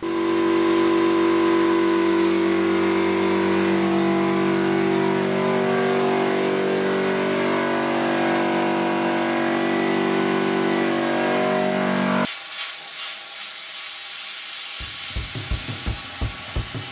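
Twin-cylinder piston air compressor running steadily, a hum of several steady tones. About twelve seconds in it gives way to the loud, high hiss of a sandblasting gun blasting a part.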